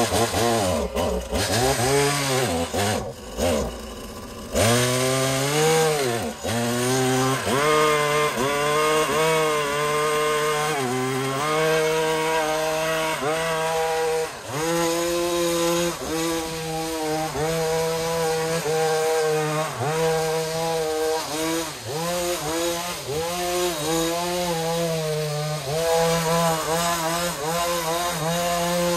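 Husqvarna petrol hedge trimmer's two-stroke engine running at high revs, its pitch sagging over and over as the blades load up in the cut and then picking back up. It is blipped unevenly for the first few seconds, then runs on continuously.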